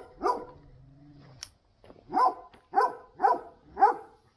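A dog barking: one bark right at the start, then four sharp barks about half a second apart in the second half.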